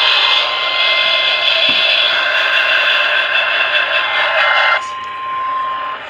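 Radio loudspeaker playing a loud, steady hiss with two steady tones, one higher and one lower. About five seconds in, the hiss and the higher tone cut off suddenly, leaving the lower tone sounding alone for about a second.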